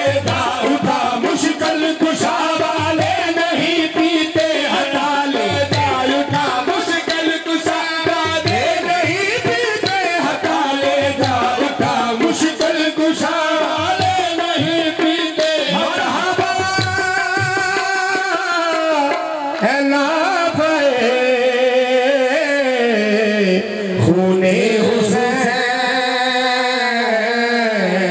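Devotional qawwali-style music: a man singing, with harmonium and hand-drum accompaniment. The drumming stops a little past halfway through, leaving the harmonium and long sung notes that slide up and down in pitch.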